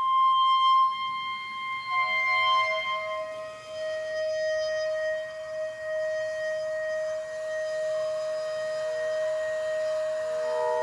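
Hechtyphon and microtone duplex playing slow experimental music of long, held, ringing tones. A high tone fades over the first few seconds while a lower one enters about two seconds in and holds, and more tones join near the end.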